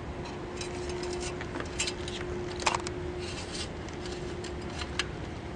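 Scattered light clicks and short metallic scrapes from a fluid dipstick being handled in a truck's engine bay, over a steady hum.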